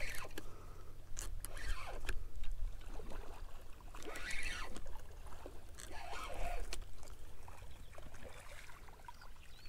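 Spinning reel being cranked as a hooked blue catfish is brought to the bank, with scattered clicks and the fish splashing in the shallows around the middle.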